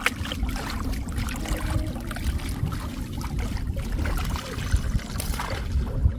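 Water splashing and trickling in many small, irregular splashes over a steady low rumble.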